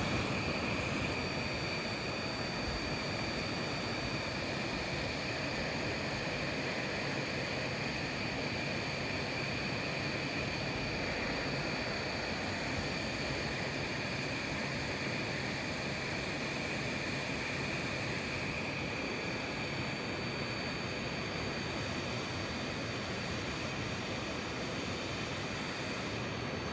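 Hot-air rework gun blowing steadily: an even rush of air with a faint high whine, heating the board to reflow solder.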